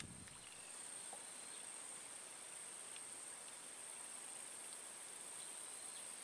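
A steady, high-pitched insect chorus holding one even pitch throughout, with a few faint scattered ticks.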